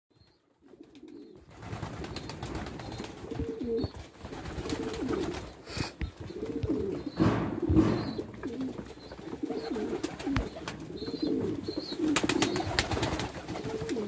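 Domestic homing pigeons cooing over and over, their calls running on almost without a break from about a second in, with a few sharp clicks among them.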